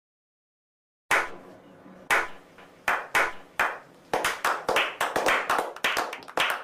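After about a second of silence, a small group of people start clapping. Slow single claps about a second apart quicken into faster, steady applause.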